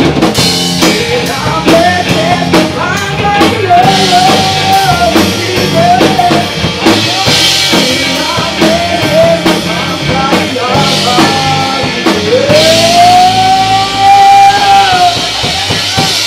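Live rock band playing: electric guitars, bass guitar and drum kit, with a male singer on a microphone. Near the end, one long note is held for about three seconds.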